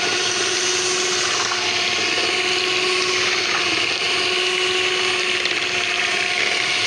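Electric hand mixer running at a steady speed, its twin beaters churning thin, liquid ice cream batter in a bowl: an even motor whine with a constant hum.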